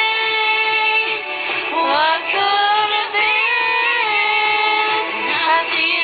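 Music: a singer's voice holding long notes that glide from one pitch to the next.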